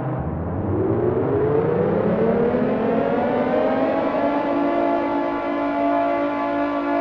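Air raid siren starting at the bottom of its pitch, winding up in a rising wail over about four seconds, then holding a steady high tone.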